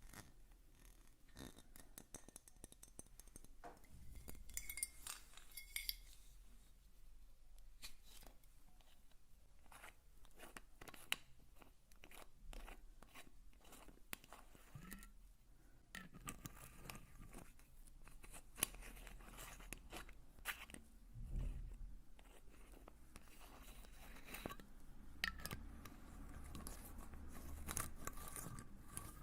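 Close-miked ASMR handling of objects: an irregular run of light clicks, taps and crinkly scratching.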